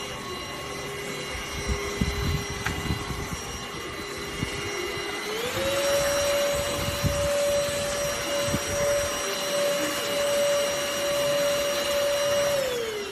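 ENOLUX ST7000 cordless handheld vacuum cleaner running with a steady motor whine. About five seconds in it steps up to a higher speed, its pitch rising, and near the end it winds down with a falling pitch. Occasional light knocks come through underneath.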